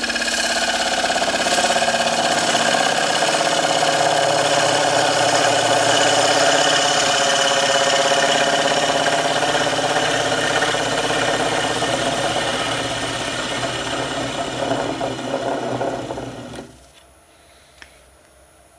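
Wood lathe spinning a rippled sycamore blank while a scraper cuts across its face: a steady scraping cut over the lathe's running hum. The sound falls away sharply near the end as the tool comes off and the lathe is stopped.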